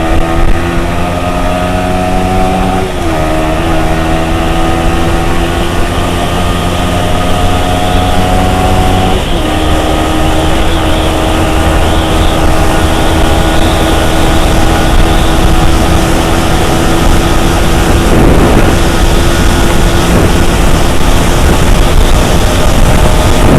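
Yamaha R15 V3's 155 cc single-cylinder engine under hard acceleration. The engine note climbs, drops sharply at two upshifts about 3 and 9 seconds in, then rises slowly in a high gear as the bike approaches about 140 km/h. Wind rushes over the microphone throughout.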